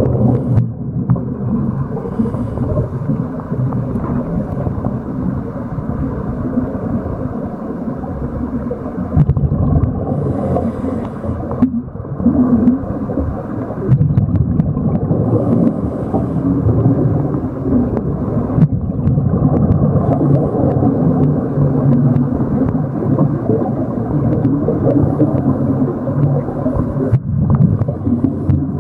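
Steady, muffled underwater rumble of moving water picked up by a camera in its housing, with a few faint clicks.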